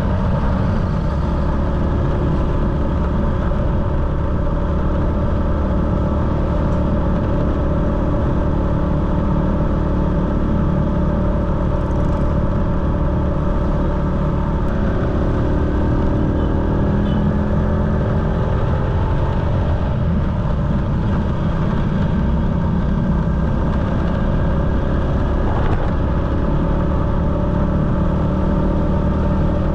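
Motorcycle engine running steadily while riding, over continuous road rumble. Its note climbs for a few seconds about halfway through.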